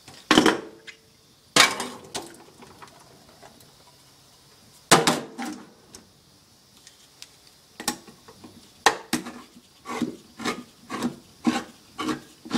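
A handheld Farberware can opener being cranked around the rims of metal cans, with a regular clicking of about two strokes a second in the second half. There are a few sharp knocks earlier as cans are set down and handled on the counter.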